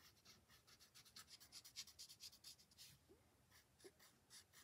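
Faint rubbing of a blending stump on a paper tile, spreading graphite shading in quick short strokes, several a second, that thin out in the second half.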